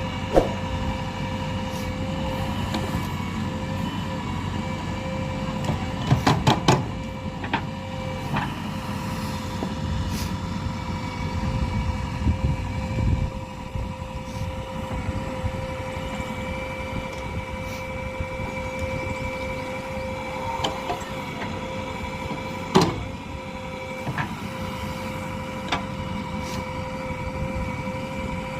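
JCB 3DX backhoe loader's diesel engine running at work with a steady whine over a low rumble. Sharp metallic knocks come from the machine, a quick cluster about six seconds in and a single one about 23 seconds in.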